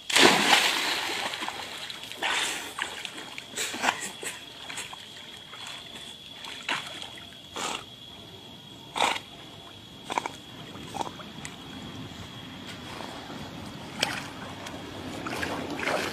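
A dog jumping into a pond with a big splash, then short splashes and sloshes every second or two as it swims out through the water to a person and back. The splashing rises again near the end as the dog climbs out of the water onto the bank.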